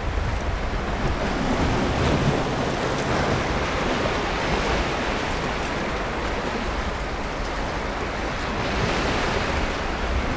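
Sea waves breaking and washing up on a beach in a continuous surf roar that swells and eases gently, with low wind rumble on the microphone.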